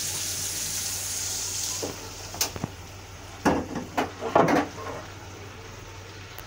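Hot pasta water draining through a plastic colander into a stainless-steel sink, a steady hiss that stops about two seconds in. A few sharp knocks and clatters follow.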